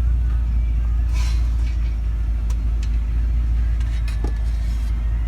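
Steady low rumble of a running vehicle, with a few brief knocks and clinks over it, about one, two and a half, and four seconds in.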